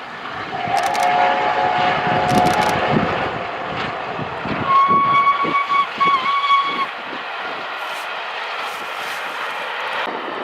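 A passing train sounds two whistle blasts over the rumble and clatter of wheels on rail: a lower, several-toned one lasting a couple of seconds, then a higher steady one about five seconds in, with a brief dip in pitch before it stops.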